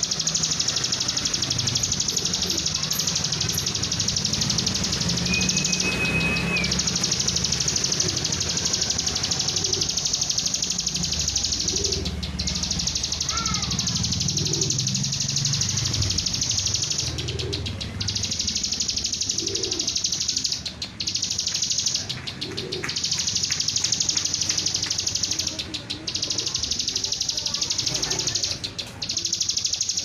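Caged bar-winged prinia (ciblek) calling, with a held high whistle about six seconds in and a couple of quick slurred notes around thirteen seconds. Underneath runs a steady high hiss that cuts out briefly several times.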